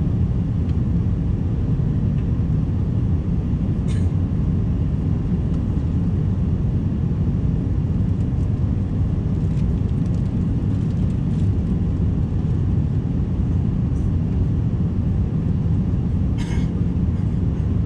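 Steady low rumble of an Airbus A350 heard from inside the passenger cabin, with a short click about 4 seconds in and a brief clack near the end.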